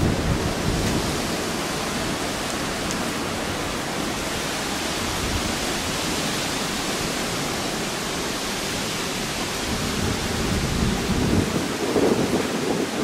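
Steady heavy hurricane rain falling on the deck, yard and flood water, a constant hiss. A low rumble swells just after the start and again near the end.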